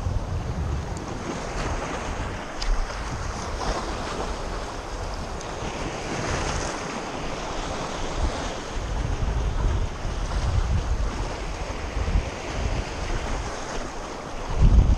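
Sea waves washing against the rocks of a breakwater, with wind buffeting the microphone in gusts and a louder rumble of it near the end.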